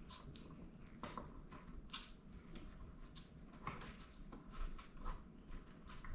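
Faint scattered clicks and rustles, about one a second, of hands handling the windshield hardware and its mounting screws.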